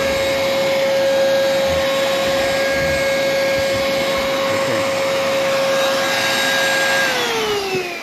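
Household vacuum cleaner running steadily with a constant motor whine, sucking through its hose inside a small cardboard enclosure. About seven seconds in, the motor winds down and its whine falls in pitch.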